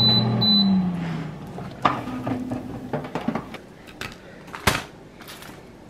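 Countertop air fryer oven beeping twice as its power button is pressed, its fan hum falling in pitch as it spins down. Then light clicks and knocks of a plate and food being handled, with one sharper knock near the end.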